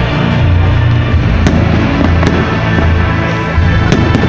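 Fireworks going off in sharp bangs, one at a time, over loud music with a heavy bass.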